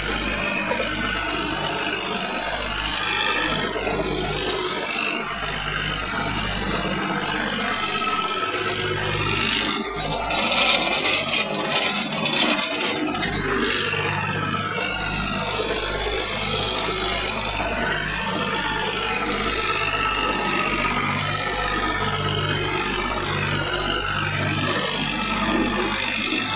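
Tractor's diesel engine running steadily under load, with a constant rattle. About ten seconds in, a few seconds of louder knocking and rubbing close to the microphone.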